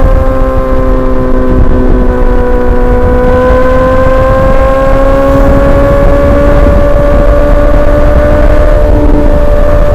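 Suzuki GSX-R1000 inline-four engine running under way at fairly steady revs, its pitch dipping slightly then slowly climbing over several seconds, with wind buffeting the microphone.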